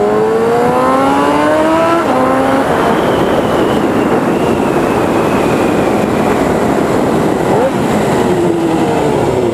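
Suzuki GSX-R 750 SRAD inline-four with an aftermarket 4-into-1 exhaust accelerating: the engine note rises for about two seconds, breaks at a gear change, then gives way to a loud rush of wind and engine at speed, with the revs falling near the end.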